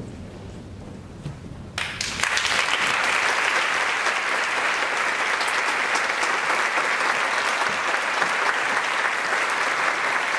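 Concert hall audience applauding, starting abruptly about two seconds in and holding steady as the conductor takes the stage.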